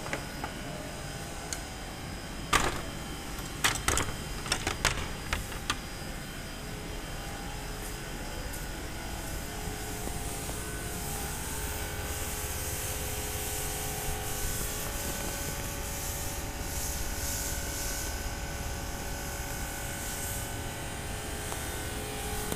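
Steady mechanical hum of cooling-tower plant machinery with faint whining tones, broken by a handful of sharp knocks a few seconds in.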